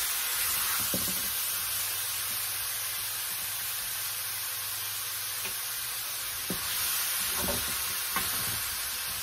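Steak, onion, green pepper and garlic sizzling as they sauté in a pan, a steady frying hiss, while a wooden spatula stirs and scrapes through them, knocking lightly against the pan several times.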